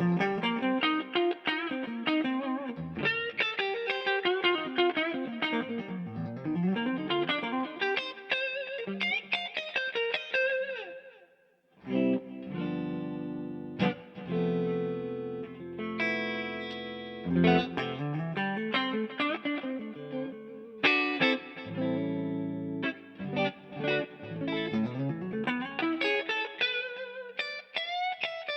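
Electric guitar played through the DVII guitar amplifier, with reverb and delay from an MXR Echoplex and a Strymon Blue Sky: quick single-note runs and chords, with a short pause about twelve seconds in.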